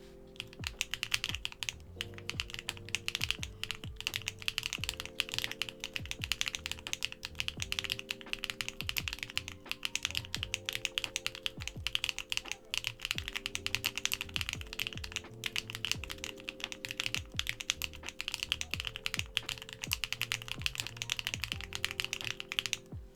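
Fast, steady typing on a small stacked-acrylic mechanical keyboard with a flexible, bouncy mount, BSUN long-pole linear switches and ABS keycaps, giving a dense run of keystroke clacks. Background music plays underneath.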